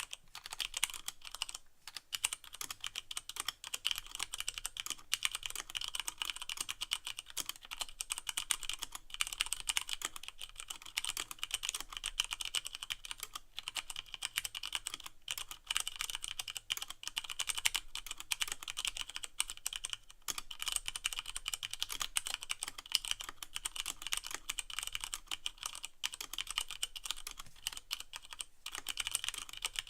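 Continuous fast typing on a Leopold FC660M mechanical keyboard with Cherry MX Brown switches and no O-rings, each keycap bottoming out with a sharp clack, the keystrokes running close together with only brief pauses.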